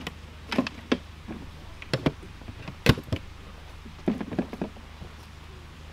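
Irregular short knocks and scuffs of camping gear being handled, several spread over about five seconds, the sharpest about three seconds in, over a low steady hum.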